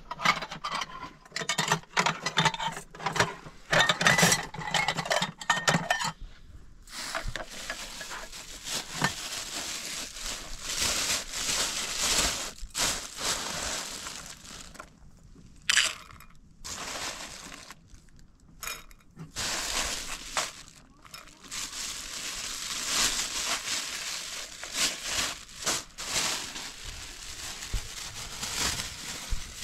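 Food-preparation handling sounds: dishes and utensils clinking, with irregular crackling and rustling.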